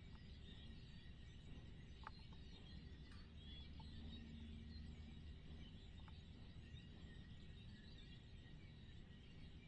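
Near silence: faint outdoor ambience with a low rumble, a few soft clicks and faint distant chirps.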